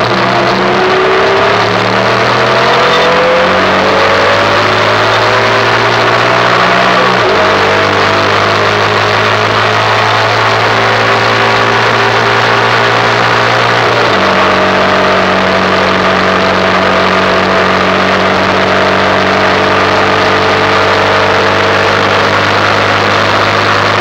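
Derestricted Yamaha YBR 125's air-cooled single-cylinder four-stroke engine under way, its note rising as the bike accelerates, stepping abruptly about seven and again about fourteen seconds in, then holding steady at cruising speed. Wind and road noise run beneath it.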